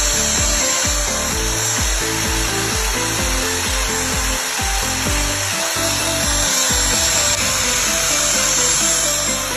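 Grinding wheel spinning against a steel key blank cut from a ratchet wrench, a steady grinding noise as the key is ground to shape, with background music carrying a beat in the bass.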